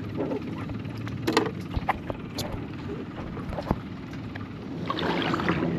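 Scattered knocks and clicks of gear being handled on a paddle board over a low steady rumble, with a low steady hum coming in near the end.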